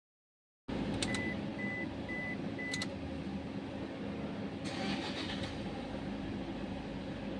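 Toyota car engine running steadily, an engine with a cylinder misfire from an open fuel-injector circuit. Four short electronic beeps come in the first few seconds, and a brief hiss comes about five seconds in.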